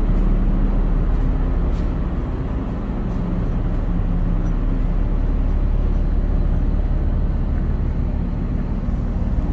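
Steady low rumble with a hum from a berthed car ferry's engines and on-board machinery.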